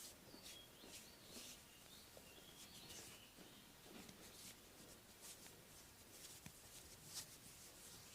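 Very quiet soft swishes of hands rubbing over bare skin during a back massage, about one every second, with a few faint high chirps in the first few seconds.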